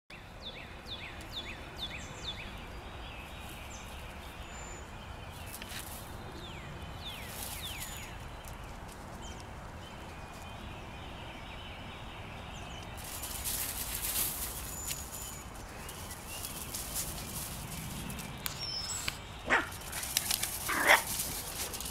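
Schnauzer puppies playing, with two short, sharp puppy barks near the end over a steady outdoor background hiss.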